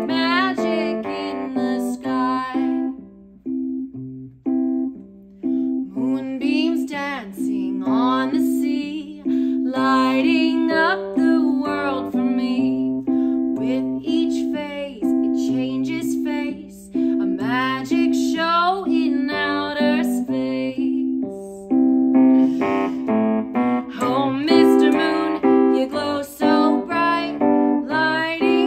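Piano playing a children's song, with a woman singing over it.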